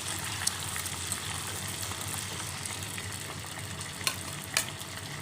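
A pork chop deep-frying submerged in hot oil: a steady sizzle with a few sharp pops, two of them close together near the end.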